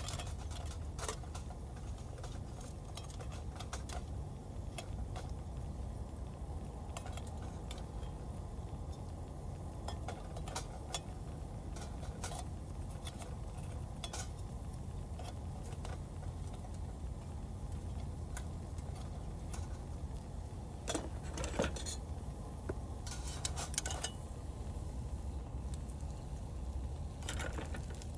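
A folding metal spatula scraping and tapping in a small camping frying pan of egg over a gas stove: scattered light clicks and scrapes, with a busier run about three-quarters of the way in. A steady low rumble sits underneath throughout.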